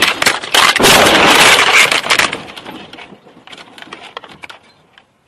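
A semi-truck and cars colliding: loud crashing and crunching full of sharp cracks. After about two seconds it dies away into scattered cracks and clicks.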